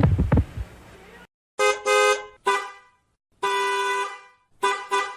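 Car horn honking in a rhythmic pattern: three short blasts, one long blast, then a quick run of short blasts. It follows the fading end of a voice-like clip with a few knocks.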